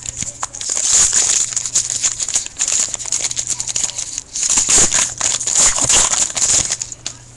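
Trading-card pack wrapper being slit and torn open and the cards pulled out: rapid, irregular crinkling and rustling of the wrapper.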